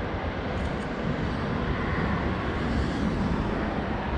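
Steady highway traffic noise: a continuous rushing hum of passing vehicles, swelling slightly midway.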